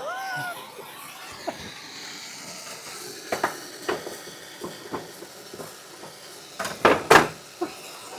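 Intermittent metallic knocks and clinks of hand tools working on a car's metalwork, the loudest cluster about seven seconds in, over a faint hiss.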